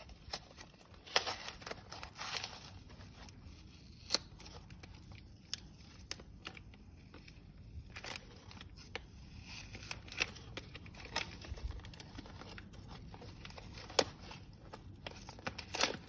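Packaging being handled and opened by hand: scattered crinkling, tearing and rustling with sharp clicks and snaps, the loudest about a second in, at four seconds and near the end.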